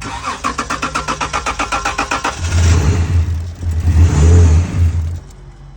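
Dodge Charger engine cranking on the starter with fast, even pulses for about two seconds, then catching and running for about three seconds before dying. It runs only on the starter fluid sprayed into the intake, which the mechanic takes as the sign of a failed fuel pump.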